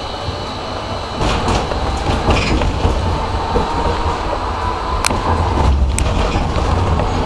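Tram running on street track, picking up speed: a low rumble of wheels on rails that grows louder about a second in, with a traction-motor whine rising slowly in pitch. A couple of sharp clicks come from the wheels near the end.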